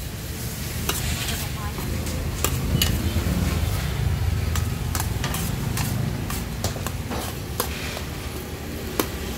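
Fried rice sizzling in a wok as a metal spatula stirs and tosses it, with sharp irregular clanks of spatula on pan over a low steady rumble.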